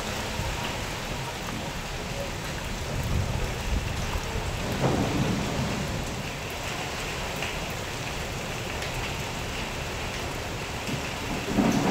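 Storm wind and heavy rain, a steady rushing noise, with deeper gusts swelling about four to five seconds in and again just before the end.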